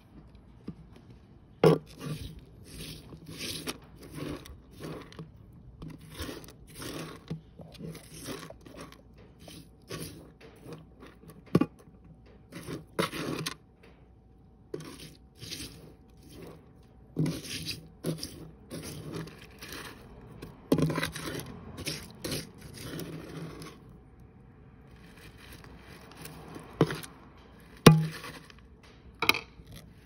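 Loose, pebble-like black soil granules shifting and scraping in a tub, in irregular crunchy bursts, with a few sharper clicks, the loudest near the end.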